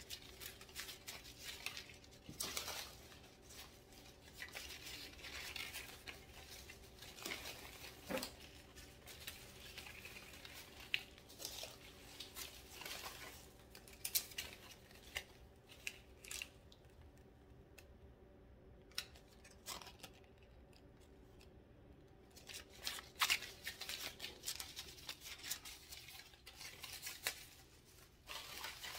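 Artificial plant stems being handled and shaken: plastic leaves rustling and crinkling, and cardboard hang tags flicking, as scattered short rustles and clicks. It goes quieter for a few seconds about two-thirds of the way through, then the rustling picks up again.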